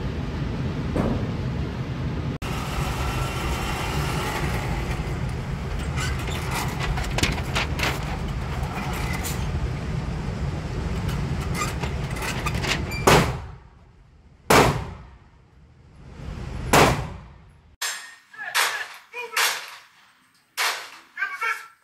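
Three single gunshots at an indoor shooting range, a second or two apart, each ringing out after a long stretch of steady loud noise. The background then cuts off suddenly and a run of short clicks and chimes follows.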